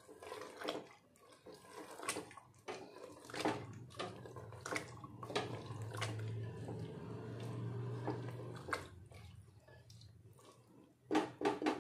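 Silicone spatula stirring soaked chickpeas through thick masala in an aluminium pressure cooker: wet squelching and sliding with scattered scrapes and knocks against the pot, louder knocks near the end. A low steady hum runs underneath through the middle for about five seconds.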